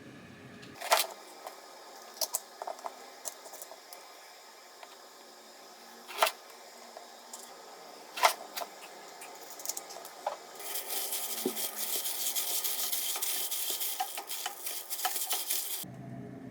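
Light clinks and knocks of dishes and utensils being handled, a few sharp ones standing out, then about five seconds of a steady crackling hiss that cuts off suddenly.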